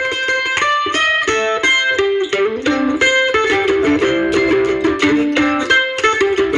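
Background music: a plucked string instrument, guitar-like, playing quick runs of notes.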